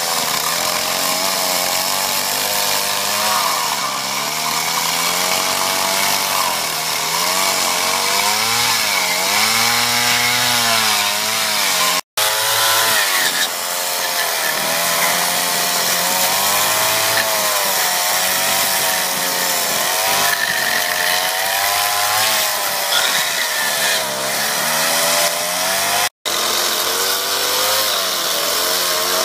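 Gas two-stroke chainsaw cutting into a wooden log during chainsaw carving, its engine pitch rising and falling again and again as the throttle and the load on the bar change. The sound breaks off for an instant twice.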